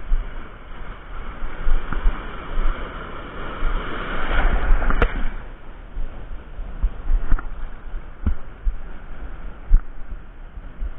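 Sea surf washing and sloshing around a camera held just above the water, with a low rumble on the microphone. The wash swells louder about four to five seconds in, and a few sharp knocks sound later on.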